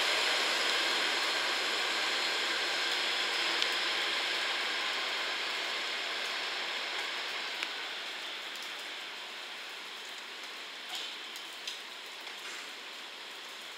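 JNR KiHa 40 series diesel railcars, five cars, moving away down the track, their engine and wheel noise fading steadily as they go. A steady hiss of rain remains underneath, with two faint clicks about eleven seconds in.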